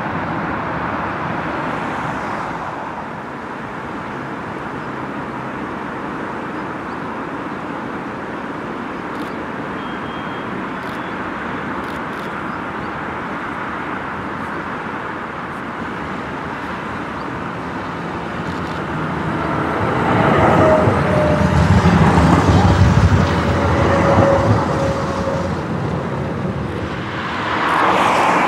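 Road traffic passing on a road beside the tram tracks: a steady wash of car noise. About two-thirds of the way through it swells as a louder vehicle goes by with a slightly falling whine, and it rises again at the very end.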